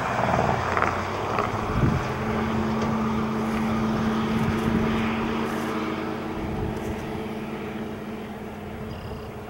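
A road vehicle passing and moving off: tyre and engine noise fading away, leaving a steady low engine hum that also fades.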